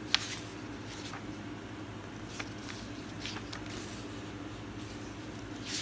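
Pages of a large-format paperback comic book being handled and turned, giving brief paper rustles and a sharp click just after the start, over a steady low hum of room noise.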